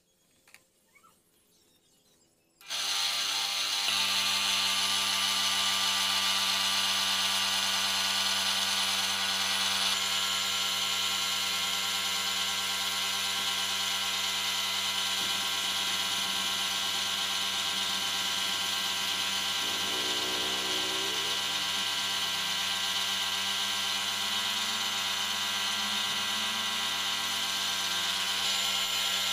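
Air spray gun hissing steadily as wood finish is sprayed onto a wooden bed, over a steady machine hum. It starts abruptly about two and a half seconds in, after near silence.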